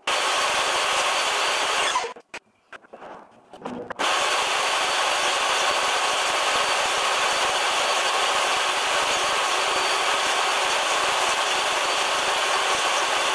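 DeWalt table saw running and cutting plywood, a steady loud motor-and-blade noise; it stops abruptly about two seconds in and starts again about two seconds later.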